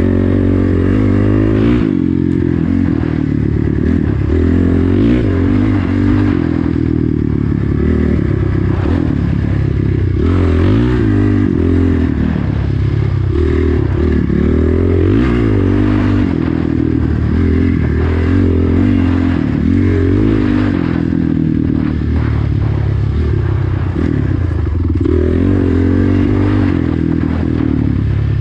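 Dirt bike engine heard on board while being ridden along a dirt trail, its pitch climbing again and again under throttle and dropping back as it shifts or eases off. Knocks and rattles from the bike over the rough track run through it.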